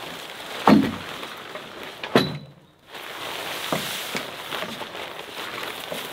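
Heavy Oxford-fabric car-camping tent being unfolded and dragged across a wooden deck: the stiff fabric rustles and swishes, with two loud thumps in the first couple of seconds and a few lighter knocks later.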